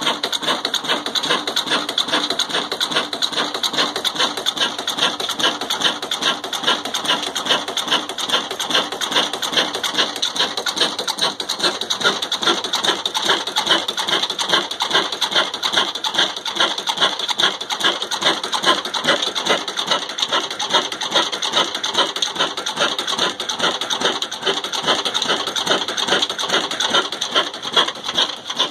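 Old Ruston Hornsby diesel engine running steadily while driving a chakki flour mill, making a fast, even mechanical clatter.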